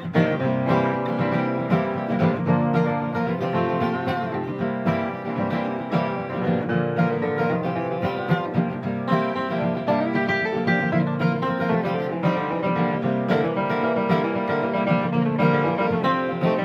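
Acoustic string band playing the instrumental opening of a country-bluegrass song, led by plucked acoustic guitar.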